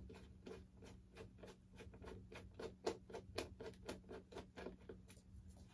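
Faint, quick clicking of a screwdriver being turned to back a screw out, about five clicks a second, stopping shortly before the end, over a steady low hum.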